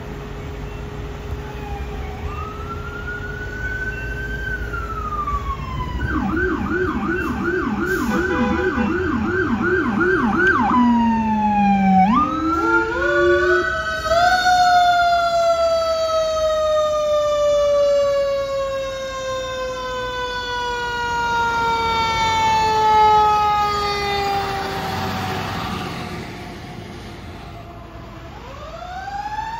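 Fire apparatus sirens running code 3: an electronic siren wails, then yelps in rapid sweeps about two a second, then a mechanical siren winds up and coasts down in one long falling tone lasting over ten seconds. A new wail starts rising near the end.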